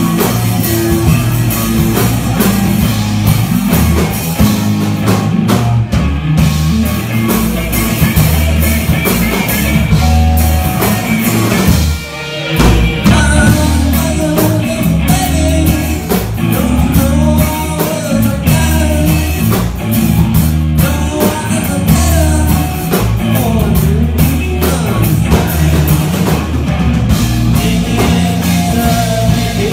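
Live rock band playing loud: electric guitars and a drum kit. The band stops for a split second about twelve seconds in and comes straight back in.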